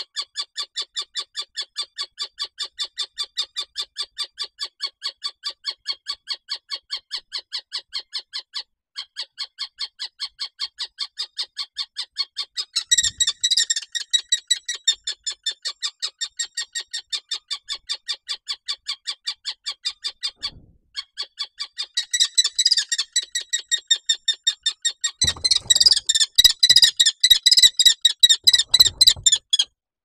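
Common kestrel giving a long run of sharp, repeated alarm calls, about four or five a second, broken by two short pauses; the calls grow harsher and more crowded about halfway through. Near the end they are joined by thumps and scuffling as a barn owl struggles with it in the nest box.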